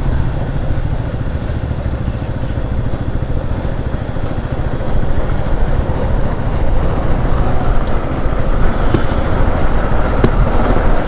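Motorcycle engine running while being ridden, with heavy low rumble from the ride. It gets louder about five seconds in.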